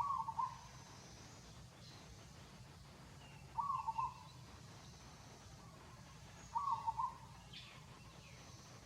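A bird calling three times, about every three seconds, each call a short hooting phrase, over a steady low background hum.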